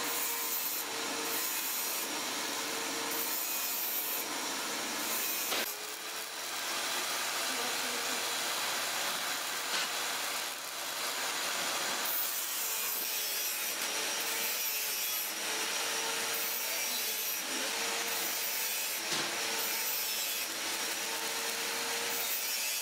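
Electric angle grinder working sheet steel: a steady harsh grinding hiss over a motor whine that sags and recovers several times as the metal is pressed to the disc, with a brief break about six seconds in.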